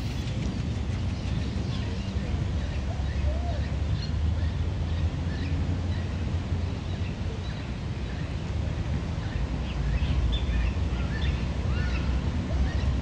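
Outdoor ambience: birds chirping here and there over a steady low rumble.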